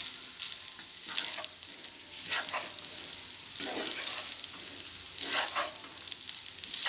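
Egg fried rice sizzling in a hot pan while being stirred: a steady sizzle with about five louder scraping swishes from the stirring strokes.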